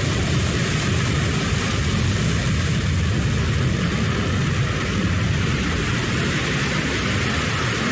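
New Shepard booster's BE-3 rocket engine firing through the final slow descent before landing: a steady, deep rumble.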